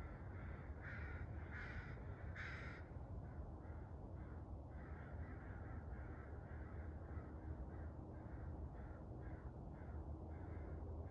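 Birds calling: three louder calls in quick succession about a second in, then a long run of fainter short calls repeated every half second or so, over a steady low rumble.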